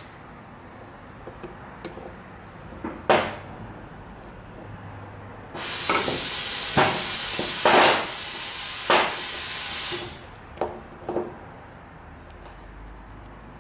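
A pressurised jet hisses steadily for about four seconds, starting and stopping abruptly, as a GY6 go-kart carburetor is cleaned out. Sharp clicks and knocks of the carburetor and tools being handled come before, during and after it.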